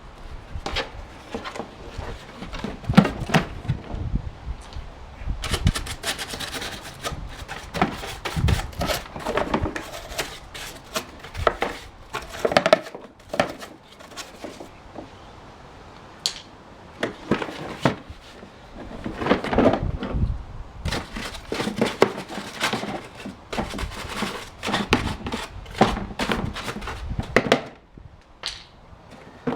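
Irregular knocks, clicks and scraping of parts being handled and fitted on a Ryobi chipper shredder, in clusters with short pauses.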